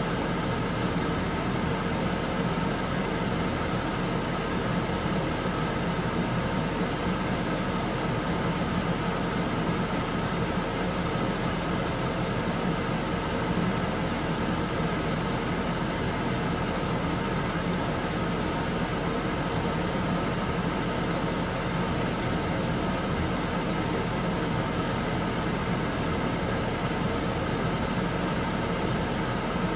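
Steady hum and hiss of kitchen machinery at a stove where beef fat is simmering in water in a wok to render tallow. The hum holds level throughout, with no sizzling, popping or crackling standing out.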